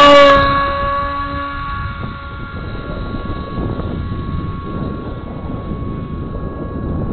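Electric motor and propeller of an RC Bixler running at high throttle: a steady, high-pitched whine, loud at first and fading within about a second to a thinner, steady whine. The owner says it sounds sickly and believes the poor-quality stock propeller is the cause.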